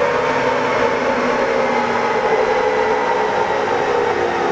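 L5P Duramax 6.6-litre V8 turbodiesel pickup running on a chassis dyno. Engine, drivetrain and dyno rollers give a steady whine that slowly drops in pitch as the pull winds down.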